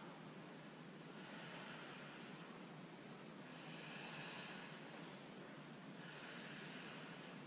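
Faint, slow breaths of a woman exercising through leg lifts, each breath drawn out over a second or more in an even rhythm.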